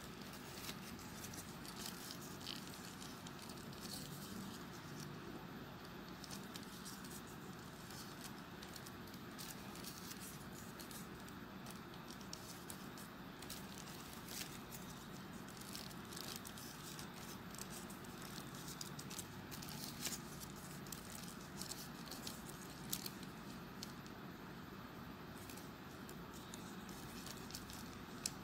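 Faint rustling and crackling of folded paper triangle units of a 3D origami model being handled and pushed into place: scattered small clicks over a steady hiss, with a few sharper ticks.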